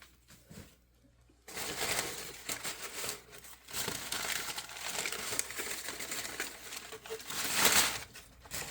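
Packing material crinkling and rustling as it is unwrapped by hand. It starts after a short quiet at the beginning and is loudest near the end.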